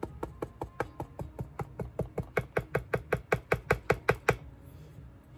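Rapid, even tapping of a hand tool on the painted canvas as the base paint is spread, about six taps a second. The tapping grows louder, then stops about four seconds in.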